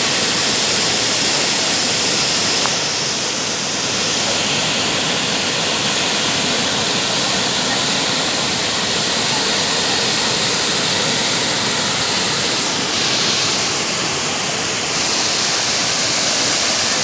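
Waterfall: water crashing down in a steady, loud rush.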